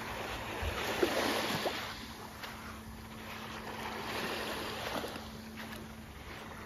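Small waves lapping onto a sand and fine-shingle shore, washing in and drawing back in gentle swells every few seconds. A steady low hum runs underneath, and a couple of sharp clicks come about a second in.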